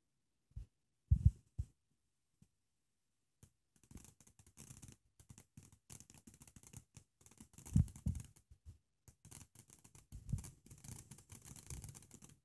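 Ground firework fountain spraying sparks and coloured stars: from a few seconds in, a dense run of fine crackles and hiss, broken twice by dull low thumps. A few dull thumps come before the crackling starts, the loudest about a second in.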